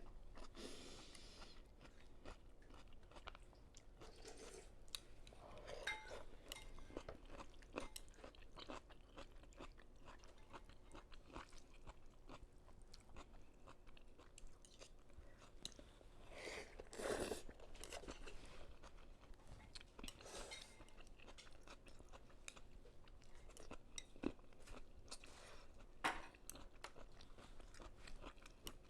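Faint close-miked chewing and crunching of a mouthful of vegetable pho, with many small wet clicks and a louder noisy burst about seventeen seconds in.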